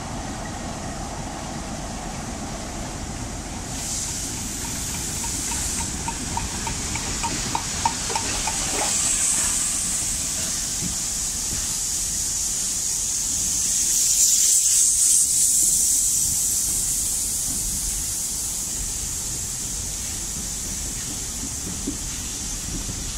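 USATC S160 2-8-0 steam locomotive drifting into the station with its train, hissing steam that swells about four seconds in and is loudest in the middle, with a run of light clicks from the train's wheels a little after it starts hissing. A diesel engine's idling hum sits underneath at first.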